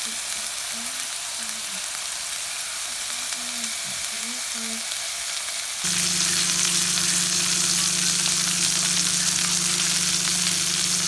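Porterhouse steak sizzling in oil in a hot frying pan, a steady hiss. About six seconds in, the sizzle gets louder and a steady low hum joins it.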